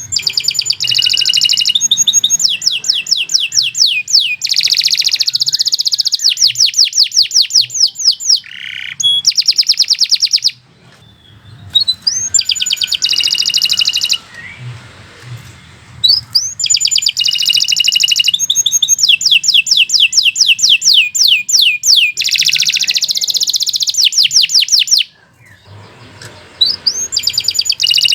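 Domestic canary singing long phrases of fast, high trills, each run several seconds long with short pauses between them.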